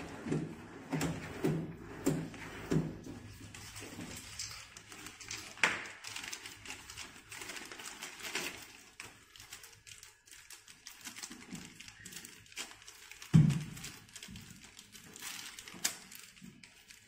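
Handling noise from desk assembly: a plastic storage tray pushed into its metal rails under the desktop, then scattered light clicks and taps as small parts are handled, with one dull thump about 13 seconds in.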